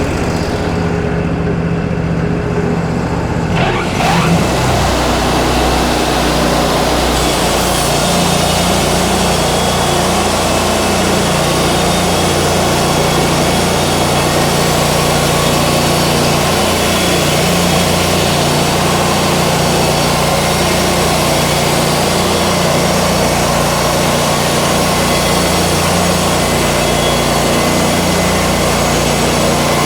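Wood-Mizer LT40 band sawmill running with its engine steady. About four seconds in, the sound thickens into a continuous dense noise as the band blade saws through yellow pine.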